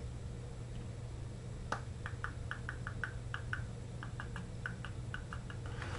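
Typing on a computer keyboard: a single key tap about 1.7 seconds in, then a quick run of light taps, about five a second, for roughly four seconds, over a low steady hum.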